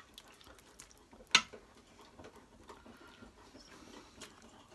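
Metal tongs clicking and scraping against the stainless steel inner pot of an Instant Pot while lifting out pieces of roast: scattered soft ticks, with one sharp clack just over a second in.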